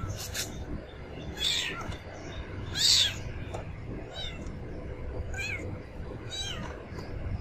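Tiny kitten meowing: about five short, high-pitched mews roughly a second apart, the loudest about three seconds in.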